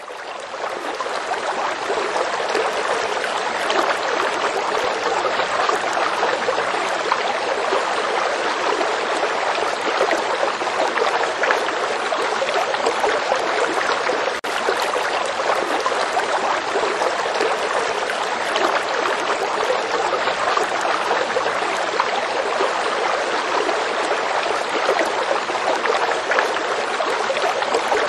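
Steady rush of a fast-flowing stream over rocks, fading in over the first couple of seconds, with a brief dip about halfway through.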